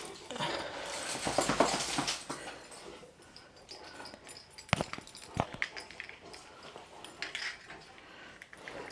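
Cane Corso puppy making small dog sounds and moving about, with rustling for the first two seconds or so and two sharp knocks around the middle.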